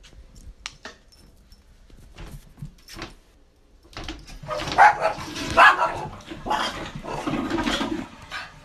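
Small dog barking and yipping excitedly, a run of loud calls starting about four seconds in after a few faint clicks.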